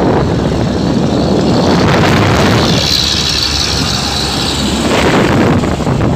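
Heavy trucks driving close alongside at speed: steady engine and road noise with wind on the microphone, and a higher hiss that swells in the middle.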